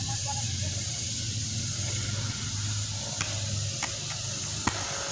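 Steady high-pitched insect chorus, with a low rumble of wind on the microphone and a few sharp clicks in the second half.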